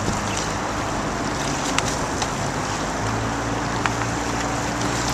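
A motorboat's engine running with a steady low hum, under wind noise on the microphone and water rushing past, with a few sharp clicks.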